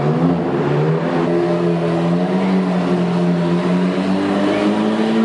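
Lamborghini supercar engine pulling away under acceleration in a road tunnel, its pitch climbing slowly and steadily, then easing slightly near the end.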